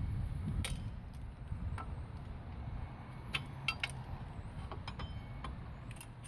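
Drum brake shoes and spring hardware being handled: a few scattered light metallic clicks and clinks, over a steady low rumble.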